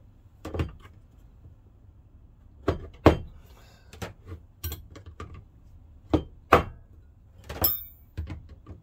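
Steel combination wrenches being handled, knocking and clinking against each other and the wrench holder in about a dozen irregular sharp hits. One clink near the end rings briefly.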